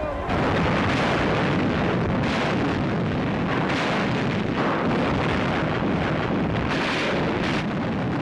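Artillery fire and shell explosions: a loud, continuous noise broken by repeated blasts.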